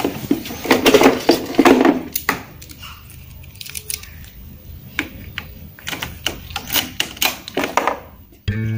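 Hand-handling noise at a Honda scooter's ignition: a run of irregular clicks and knocks with some rustling, and no engine running. Guitar music comes in near the end.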